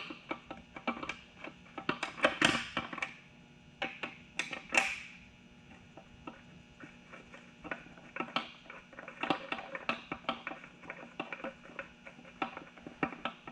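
Irregular clinks, knocks and rattles of hand tools on metal, from work on the bottom end of a race engine, with a cluster of louder clatter about two seconds in and again near five seconds.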